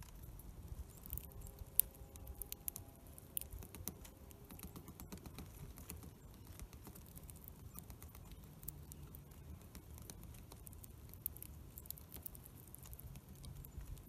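Birds pecking through black sunflower seed on a wooden platform feeder: an irregular scatter of small clicks and taps of beaks on seeds and shells. Under them runs a low rumble of wind on the microphone.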